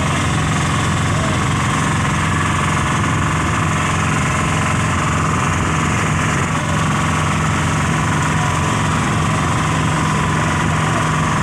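Engine of a motorized bangka outrigger boat running steadily at cruising speed, an even drone that does not change, with water splashing along the hull.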